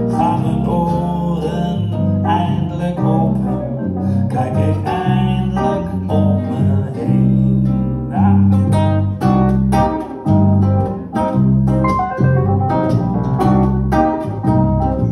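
Live band music without vocals: acoustic guitar, electric bass and keyboard playing an instrumental passage, with steady bass notes under picked guitar. The guitar picking gets busier about halfway through.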